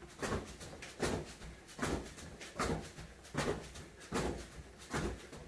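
One person jogging on the spot on a foam floor mat and kicking to belt height: feet landing, with the swish of legs and trousers, in an even beat of about one stroke every 0.8 seconds.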